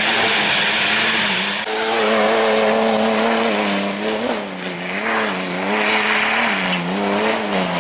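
Off-road 4x4 engine revving hard and held near the limit as it climbs a slope of loose rock. The revs dip and rise again several times over the second half. Tyres spin and scrabble on the stones.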